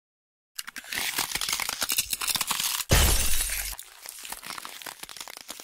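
A shattering, crackling sound effect: a dense run of cracks and crunches, a louder break with a low rumble under it nearly three seconds in, then fainter crackling that dies away.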